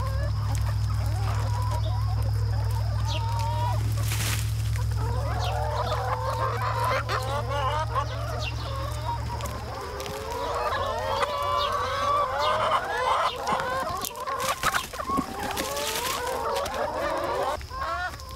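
A flock of hens clucking and calling over freshly scattered cabbage leaves, the calls growing busier and more overlapping about halfway through. A few brief rustles or knocks are heard among them.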